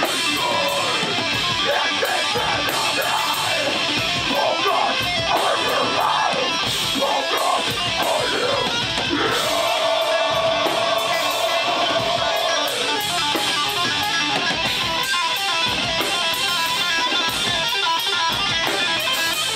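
Metal band playing live: distorted electric guitar, drums and a vocalist shouting into the microphone, with a long held note about halfway through.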